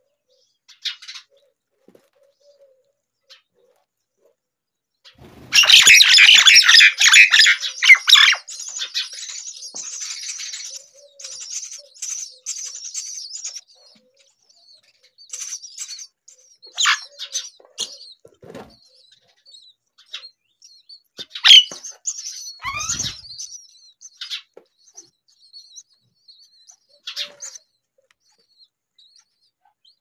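Common myna nestlings begging for food with a loud burst of dense, high chattering about five seconds in, lasting about three seconds and trailing off more quietly. After that come scattered chirps and short calls, several sliding down in pitch.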